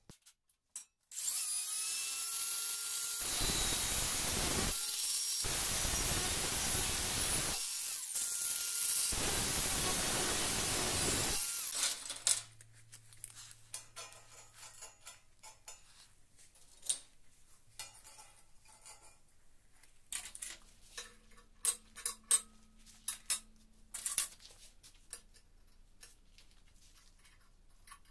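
A power tool runs for about eleven seconds, working into metal in three louder bouts. It is followed by light clinks and taps of steel pieces being handled on a steel table.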